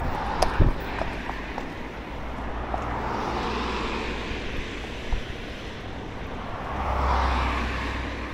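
Cars passing on the adjacent road: tyre and engine noise swells and fades twice, with a low rumble underneath. A few sharp clicks near the start.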